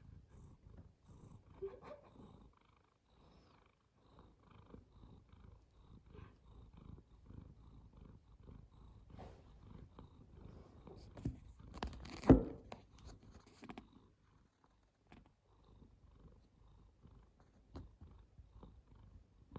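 Domestic cat purring contentedly while being kneaded and massaged, a low rapid pulsing that pauses briefly around three seconds in. A single sharp knock about twelve seconds in is the loudest sound.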